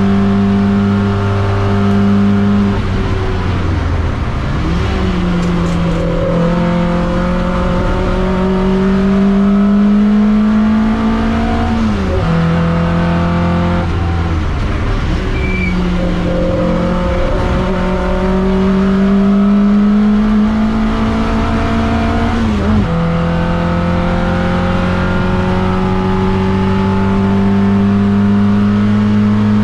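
TVR Vixen race car's engine heard from inside the cockpit at racing speed, its note climbing slowly under throttle through long stretches and dropping sharply about 3, 12 and 23 seconds in.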